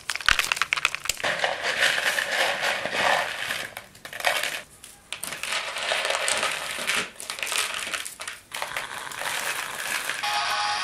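Dry maize kernels being rubbed off the cobs by hand into a plastic bowl: a dense, continuous crackling and rattling. Near the end a mobile phone starts to ring.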